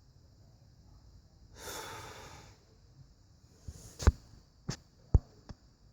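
A person breathes out audibly once, then four sharp clicks or taps come in the second half, over a faint steady high hiss.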